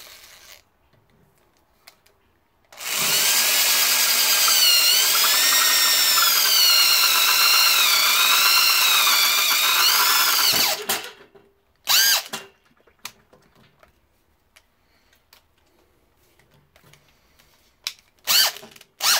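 Old corded electric hand drill boring out a hole in a metal bracket held in a drill-press vise: about eight seconds of steady motor whine whose pitch wavers with the load, then it stops. Two or three short bursts of the drill follow later.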